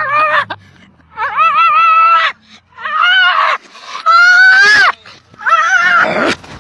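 A husky-type dog yowling in a string of five drawn-out calls with wavering pitch, each under a second long, with short gaps between them. The first is already under way at the start.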